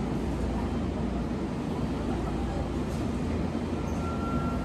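Tokyu 5050 series electric train at a standstill with its equipment running, a steady low rumble. Near the end a steady high whine from its Hitachi IGBT VVVF inverter starts up as the train gets ready to pull away.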